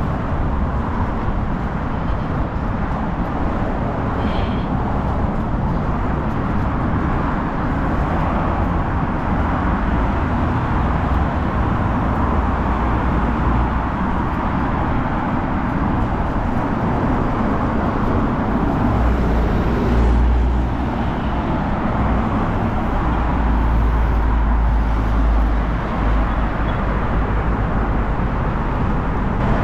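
Wind rushing over the microphone while cycling, mixed with road traffic, with heavier bouts of low wind rumble about two-thirds of the way through.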